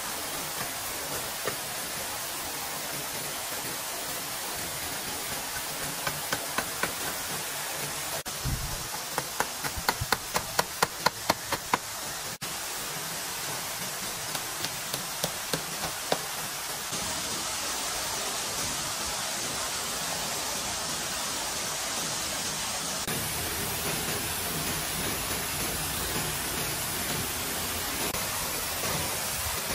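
Sharp knocks in three short runs over a steady rushing hiss. The middle run is the loudest, about a dozen quick strikes at roughly three a second.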